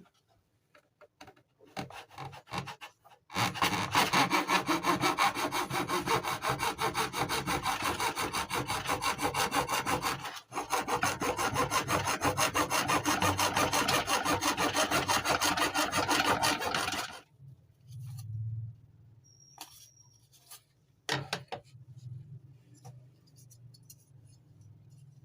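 Hand sawing: fast, even back-and-forth strokes that run for about fourteen seconds with a brief pause midway, followed by a few light knocks and clicks.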